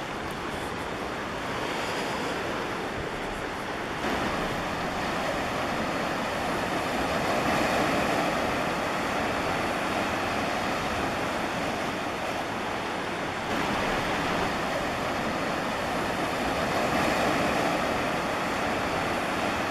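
Ocean surf washing against a rocky shoreline: a steady wash of waves that rises and eases twice. The level steps up abruptly about four seconds in and shifts again past the middle.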